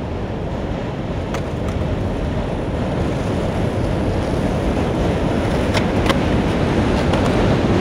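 Skateboard wheels rolling over street pavement: a steady low rumble that grows slowly louder, with a few light clicks.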